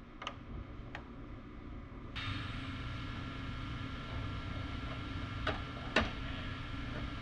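Steady shop background noise with a few short sharp clicks, the loudest about six seconds in.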